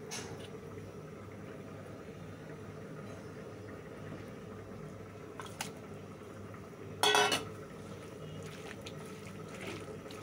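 A stainless steel bowl clatters against a nonstick frying pan as fish pieces are tipped in. There is a faint click about five and a half seconds in, then one short, loud metallic rattle about seven seconds in, over a low, steady background.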